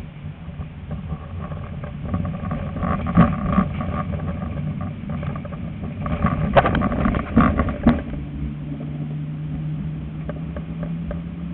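Tram running on rails with a steady rolling rumble, broken by clusters of clattering knocks as the wheels pass over rail joints and crossings, about three seconds in and again between six and eight seconds. After that a steady low hum carries on.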